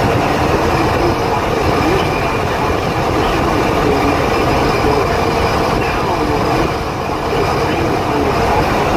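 A moving truck's engine and road noise: a loud, steady drone with a steady hum running through it.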